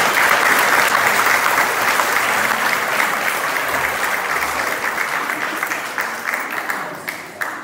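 Audience applauding, a dense crackle of many hands clapping that fades away near the end.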